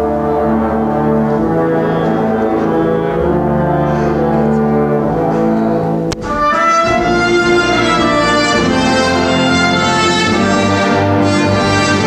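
Live orchestra with violins and cellos playing long held chords. About six seconds in there is a brief drop with a click, after which a fuller, louder passage follows.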